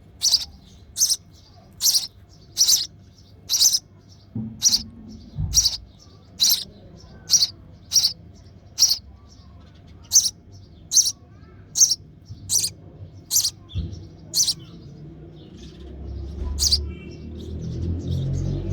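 Nestling sparrow giving short, sharp, high begging chirps about once a second in a steady series, hungry and calling for its parent; the series stops about fifteen seconds in, with one last chirp after. A low rumble builds near the end.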